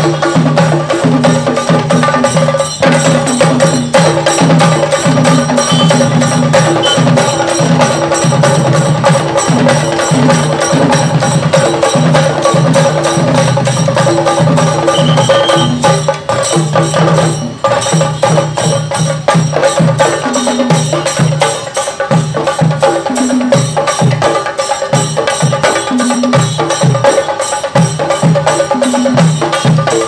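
A group of Kerala chenda drums, cylindrical drums beaten with sticks, played together in a fast, loud, unbroken rhythm, with a short dip in loudness about halfway through.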